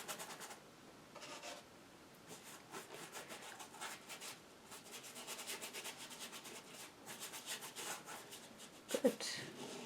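Paintbrush scrubbing acrylic paint onto canvas in quick, repeated short strokes, a faint dry brushing and scratching.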